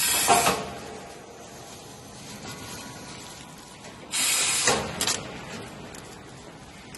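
Compressed-air hiss from a two-line plastic bag cutting machine, twice, about four seconds apart, each burst lasting around half a second to a second, over a faint steady machine noise.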